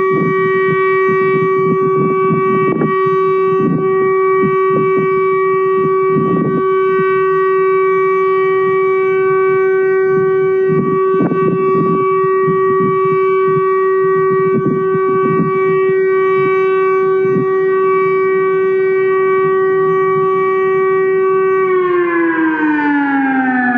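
Outdoor warning siren holding one steady tone, then dropping in pitch as it winds down just before the end.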